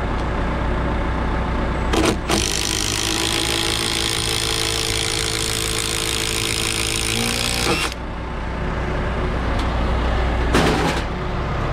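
A Makita cordless impact driver hammering a long screw into a rough-sawn 4x8 fascia board for about six seconds, starting about two seconds in and stopping abruptly, with a short second burst near the end. Underneath, an engine idles steadily.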